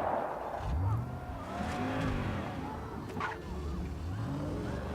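Video-game car engine revving up and down, its pitch rising and falling repeatedly, with one short sharp crack about three seconds in.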